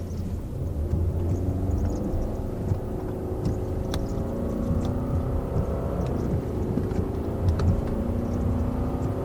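Car engine running at a steady pitch over a low rumble, with a few faint clicks.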